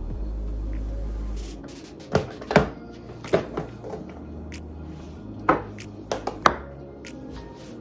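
Household items being set down and shifted on a kitchen countertop: a series of sharp knocks and taps, about eight in all, in two clusters. Low background music plays and stops about a second and a half in.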